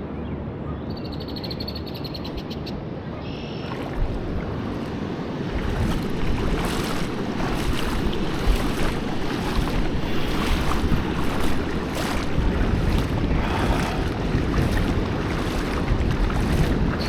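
Steady rushing noise of wind buffeting the microphone over flowing river water, growing louder about five seconds in.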